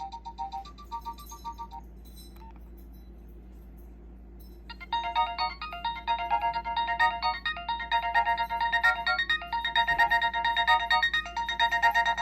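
Nokia 6016i built-in ringtones playing from the phone's speaker. A few short beeping notes trail off in the first two seconds. After about three seconds of low hum, a new electronic ringtone melody starts, with several notes sounding together in repeating phrases.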